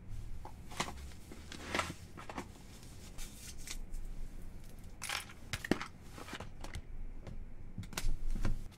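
Rustling and scattered light clicks and knocks as small objects are picked up and handled. A louder, duller rustle comes near the end.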